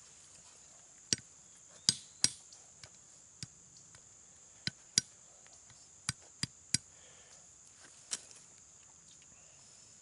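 Sharp knocks of a steel tomahawk head striking roasted hickory nuts on a rock to crack their hard shells, about ten separate strikes in irregular clusters.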